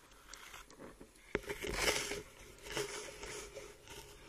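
Underwater crackling and rustling, with a sharp click about a second and a half in and two brief hissing swells after it.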